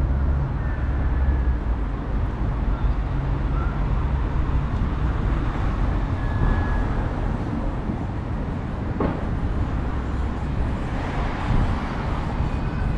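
Wind buffeting the microphone outdoors, a heavy low rumble that is strongest for the first four seconds or so and then eases, over a steady noisy outdoor background. A few faint, short high calls sound through it, and there is a single brief knock about nine seconds in.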